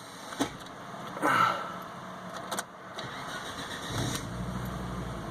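Volvo car engine slow to start: a few clicks and a short burst of noise, then about four seconds in the engine catches and settles into a steady low idle. The hard start is what the owner takes for a starter that may be going out.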